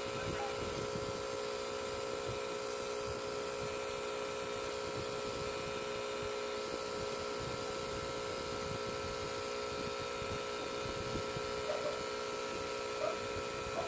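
Tattoo machine running steadily while its needle works ink into skin: a constant hum made of several held tones.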